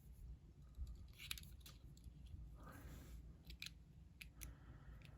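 Faint, scattered little clicks and a soft scrape of a lock pick being worked inside a practice lock.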